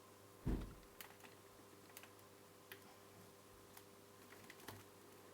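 Quiet room with one soft knock about half a second in and a few faint, scattered clicks: small handling noises from working on the TV's insides.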